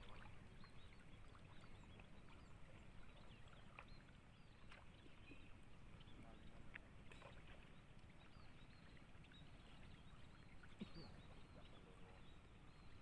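Near silence: faint small water sounds, light lapping and ticks, over a steady low rumble.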